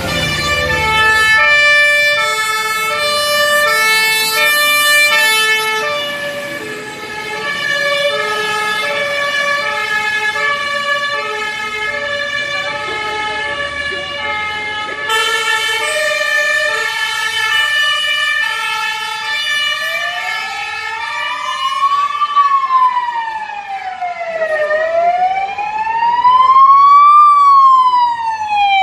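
Fire service vehicles departing on a call with their sirens on. Overlapping two-tone sirens alternate between two notes, and about twenty seconds in a wailing siren takes over, rising and falling slowly and then sweeping faster near the end.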